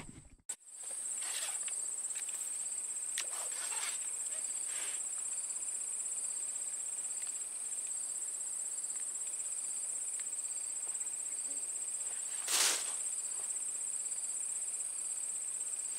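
Insects shrilling in one steady, unbroken high-pitched trill. A single short brush of noise cuts across it about twelve and a half seconds in.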